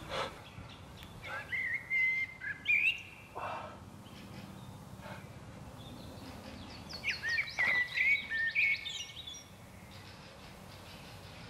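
A songbird singing two short phrases of quick chirping, rising notes, the first about a second in and the second about seven seconds in.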